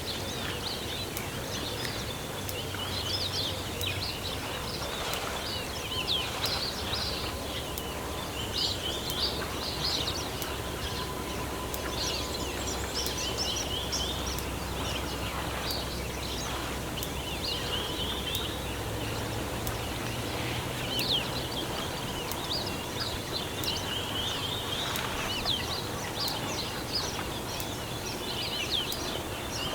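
Birds calling again and again throughout, in short high chattering phrases every second or two, over a steady low background hum.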